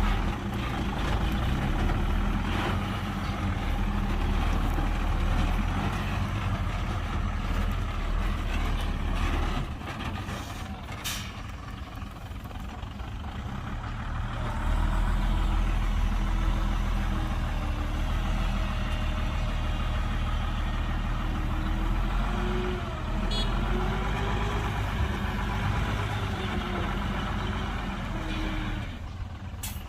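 Heavy diesel engines of construction machinery running steadily, dump truck and earthmoving equipment at work. The engine noise drops back about ten seconds in and picks up again about five seconds later.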